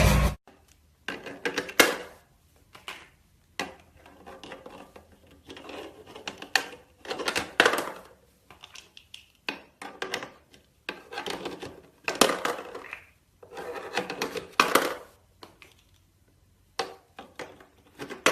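Small hard objects clattering, clicking and rubbing in short, irregular bursts separated by brief pauses.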